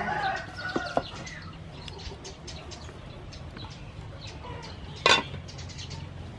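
Metal cooking pot being set on the fire and its lid put on, with a loud metallic clank of the lid about five seconds in. Chickens cluck in the background throughout.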